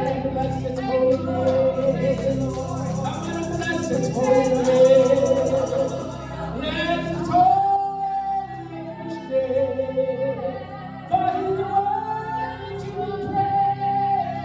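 Gospel praise music with a woman singing long, held lines over instrumental accompaniment.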